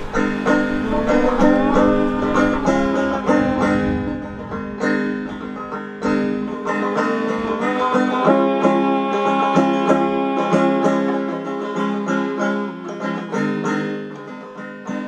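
Banjo music: a quick run of plucked notes, some of them sliding in pitch, played without singing.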